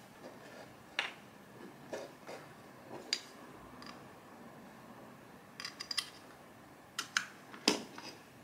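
A series of sharp clicks and taps as a UGREEN USB-C hub and a portable hard drive's cable are handled and the USB-A plug is pushed into one of the hub's USB-A ports. The loudest click comes near the end.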